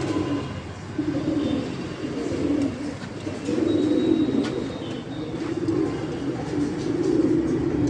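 Racing pigeons cooing: a run of low coos, about one a second.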